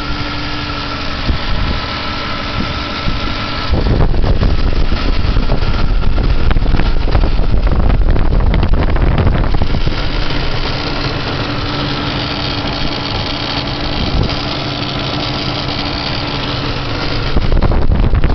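1998 Dodge Durango's 5.2-litre V8 engine running, heard up close, with a very strange knock that comes from the right rear corner of the engine; the owner has ruled out the injector. It gets louder about four seconds in until about ten seconds, and again near the end.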